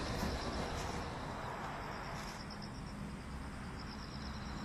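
Faint outdoor ambience: a steady low rumble, with a quiet, fast-pulsing high chirp that starts about halfway through.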